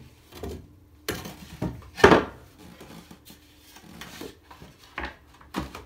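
MDF skirting boards being handled and set against the wall on bare floorboards: a series of knocks and scrapes, the loudest about two seconds in.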